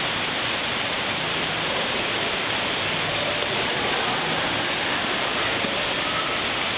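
Steady rushing noise like falling water, even throughout, with no distinct knocks or voices standing out over it.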